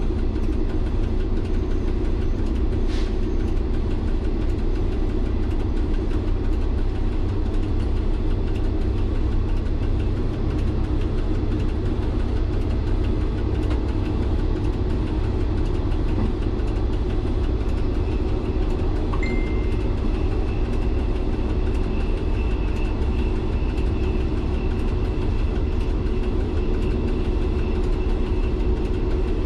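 MVTV-2 overhead-line maintenance railcar's diesel engine running steadily, a low drone heard from inside the cab. A thin high whine comes in about two-thirds of the way through.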